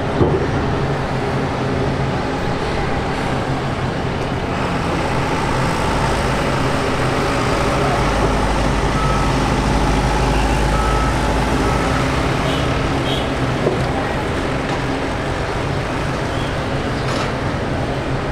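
Steady engine rumble with a low hum, the deep rumble swelling through the middle and easing off again.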